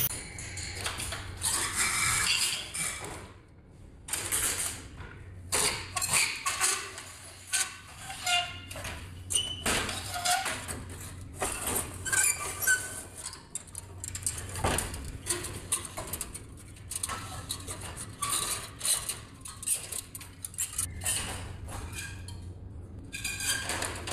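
Irregular metal clattering, knocking and rattling as a defrost heater element is worked into place in a walk-in freezer's evaporator coil, its metal rod and the unit's sheet-metal panels and clips knocking together.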